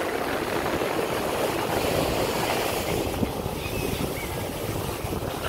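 Wind buffeting the microphone over the steady wash of sea surf, a continuous rushing noise with a low rumble.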